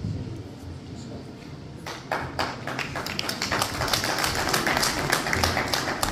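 A small group of people clapping, starting about two seconds in, with individual claps heard separately rather than as a smooth roar.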